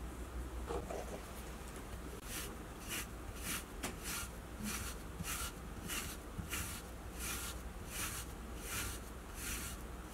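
A pet brush raked through a long-haired cat's fur in steady rhythmic strokes, about two a second, starting a couple of seconds in.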